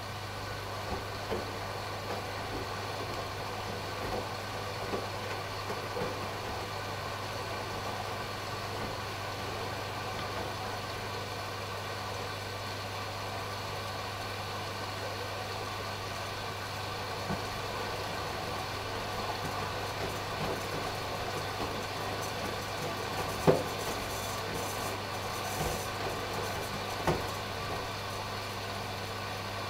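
AEG Lavamat washing machine running through its last rinse-and-spin stage: a steady low hum with a few short knocks from the drum, the loudest about three-quarters of the way through.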